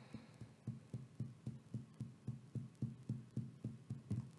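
Fingertips tapping steadily on the collarbone point in EFT tapping: faint, soft dull thuds at about four taps a second.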